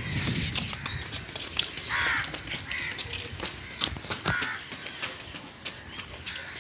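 A crow cawing a few times, harsh short calls, over the light taps of footsteps on paving.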